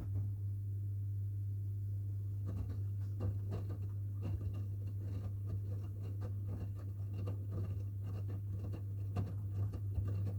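Front-loading washing machines running a wash cycle: a steady low hum, with irregular soft clicks and rustling from the tumbling laundry starting a couple of seconds in.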